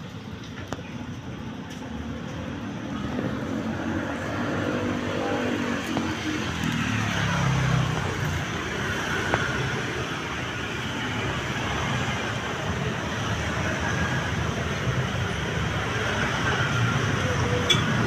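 Steady road traffic noise, with one vehicle's engine passing about four to eight seconds in, its pitch rising and then falling.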